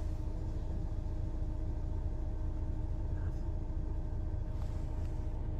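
Mercedes-Benz O405NÜ bus engine idling steadily: an even low rumble with a faint hum above it, and a faint short hiss near the end.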